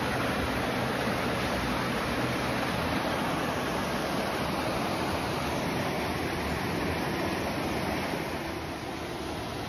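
A small creek cascading over rocks, giving a steady rush of water that turns a little softer near the end.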